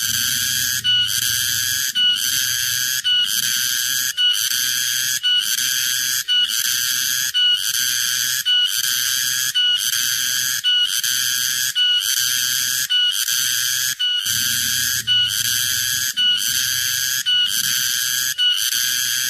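Cicadas singing: a loud, shrill buzz that pulses in a regular rhythm, about once a second, each pulse broken by a brief gap.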